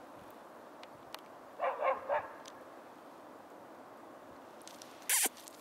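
Young dog making three short whining yelps about two seconds in, then a brief, loud, breathy huff near the end.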